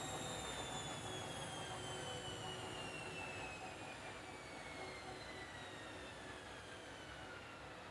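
Washing machine drum spinning down after a spin: the motor's high whine falls steadily in pitch as the drum slows, growing quieter.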